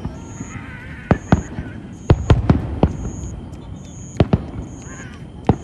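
Aerial firework shells bursting, about ten sharp bangs in irregular succession, several coming in quick pairs, over a low rumble.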